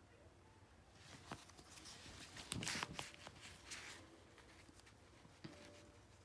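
Faint rustling and a few light clicks of yarn and a crochet hook being handled close to the microphone, mostly in the first half and strongest near the middle.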